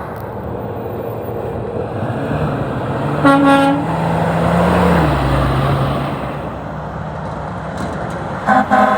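Trucks passing on a road, one engine drone rising and then dropping as it goes by about five seconds in. A truck horn gives one short blast about three and a half seconds in, and a quick series of short horn toots starts near the end.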